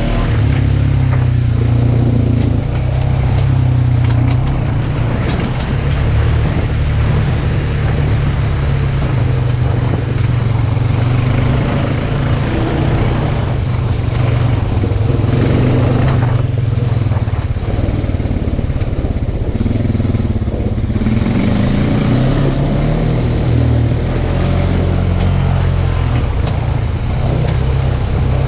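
Side-by-side UTV engine running steadily, swelling in pitch now and then as it is throttled up.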